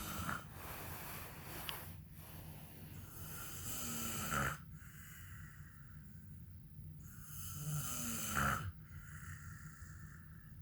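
A man snoring in his sleep, in a regular breathing cycle of about four seconds. Two loud rasping snores, about four seconds apart, each cut off abruptly, with quieter breathing between.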